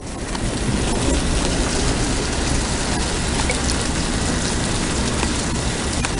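Rain falling steadily: an even hiss with scattered sharper drop ticks.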